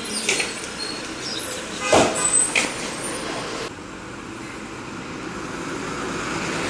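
Private buses in street traffic: a few short, sharp hissing bursts in the first half, the loudest about two seconds in, then the sound changes abruptly to a bus approaching, its noise building steadily.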